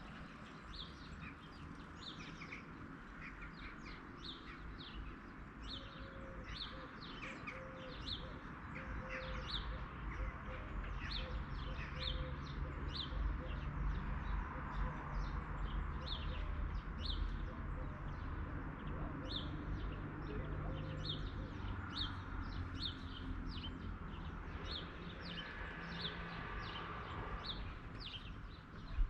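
Small birds chirping: many short, high chirps repeating steadily throughout, over a low rumble that grows louder in the middle.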